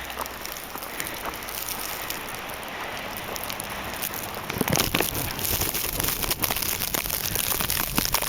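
Wind-driven snow pelting a plastic Ziploc bag wrapped over the camera, a constant crackling like rain on plastic. It grows louder and denser about halfway through.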